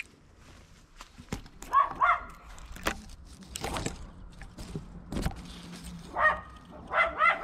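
A dog barking in short yips, once at about two seconds and a few times near the end, over scattered cracks and rustles of twigs and branches being pushed through.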